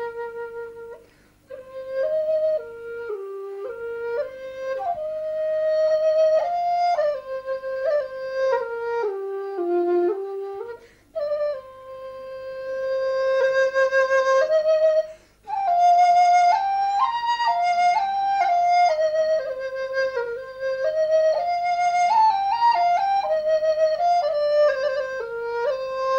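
Background music: a solo flute playing a melody, its notes stepping up and down, some held long, with short pauses between phrases.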